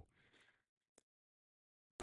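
Near silence: a pause in conversation, with a gated, dead-quiet room tone.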